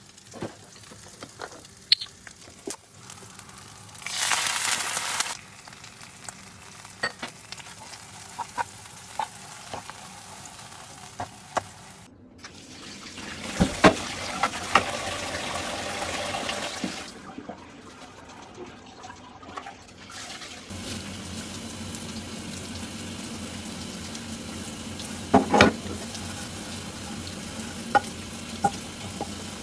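A few utensil clicks and a short sizzle from a frying pan, then tap water running into a stainless-steel sink as a nonstick frying pan is rinsed and scrubbed with a sponge, with a few sharp knocks near the end.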